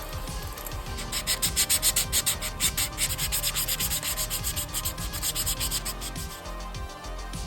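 180-grit wet sandpaper rubbed by hand over a 3D-printed PLA+ mask in quick back-and-forth strokes, about five a second. The strokes start about a second in and stop about six seconds in.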